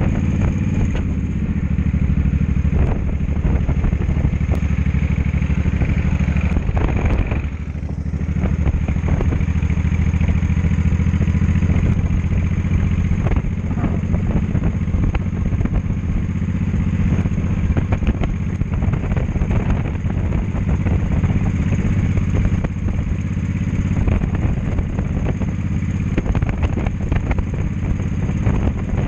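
Cruiser motorcycle engine running steadily under way, heard from the rider's seat. The engine note sags briefly about eight seconds in, then picks up again.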